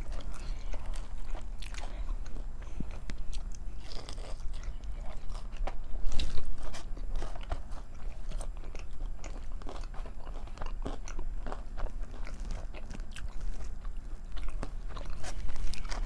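Close-miked biting and chewing of fried chicken fingers and Texas toast: many short, wet, clicky mouth sounds, loudest about six seconds in.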